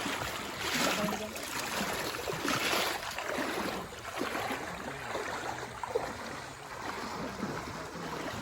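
Floodwater splashing and sloshing around a boat crossing a flooded road, with two louder splashes in the first three seconds.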